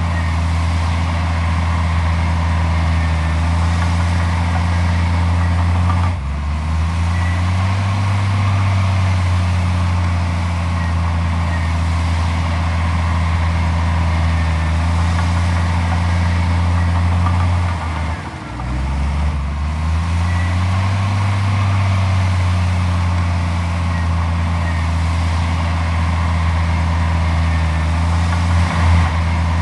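Heavy diesel engine of earthmoving machinery running steadily. Its speed drops briefly about six seconds in and again around eighteen seconds in, then climbs back.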